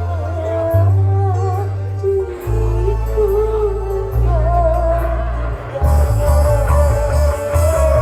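Song with a singing voice and very heavy bass played loud through a parade sound system; the bass turns choppier about three-quarters of the way in.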